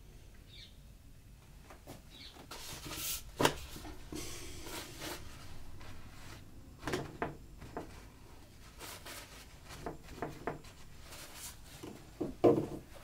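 Paintbrush and a paper tissue rubbing and dabbing on watercolour paper at an easel, heard as soft rustling and brushing in stretches, with a sharp click about three and a half seconds in and dull knocks around seven seconds and near the end.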